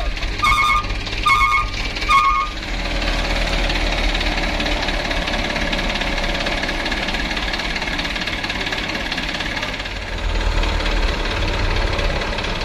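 Mitsubishi Canter truck's diesel engine running steadily with a low rumble, swelling louder about ten seconds in. Over the first two seconds a truck's reversing alarm beeps about three times.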